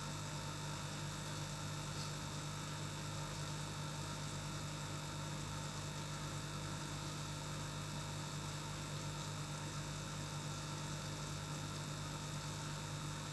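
Steady electrical hum over a constant hiss, from an aquarium air pump running.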